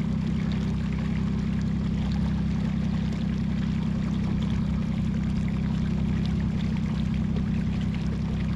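40 hp outboard motor running steadily at trolling speed, a constant low hum, with water washing along the boat's hull.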